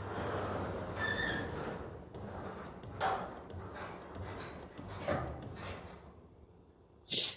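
Garage door opener motor running as the up button is held, driving the door upward with knocks and rattles and a brief high tone about a second in, then stopping about six seconds in.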